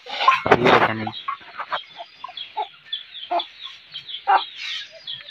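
Chickens clucking in many short, scattered calls, with a louder, lower-pitched call about half a second in.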